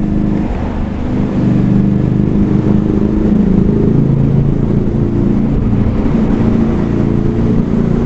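Honda Shadow 400 V-twin running through aftermarket Screamin' Eagle slip-on mufflers while riding, its exhaust note dropping about half a second in and rising and falling with the throttle and gear changes.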